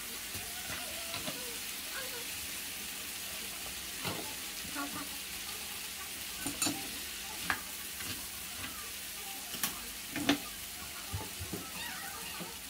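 Spaghetti and vegetable tomato sauce sizzling in a shallow non-stick pan while a wooden spatula stirs and turns the noodles, giving a steady hiss with scattered soft knocks and scrapes.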